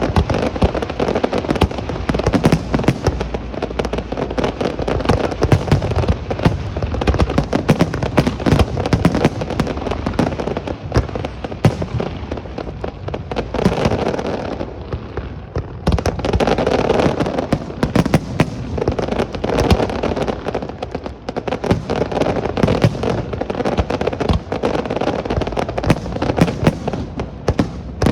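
Fireworks display: a dense, continuous barrage of bangs and rapid crackling. It eases briefly about halfway through, then picks up again.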